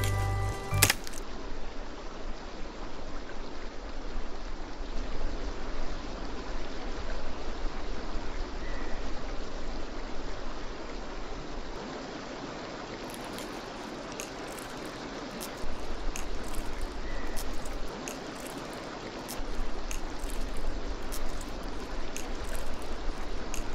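Steady rushing of flowing river water, with a couple of faint short high chirps. A snatch of music cuts off about a second in.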